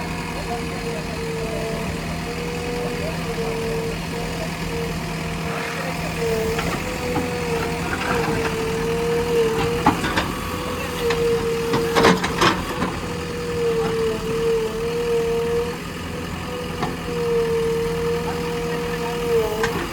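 JCB backhoe loader's diesel engine running at work, with a steady high tone that dips in pitch now and then. A couple of sharp knocks come about ten and twelve seconds in.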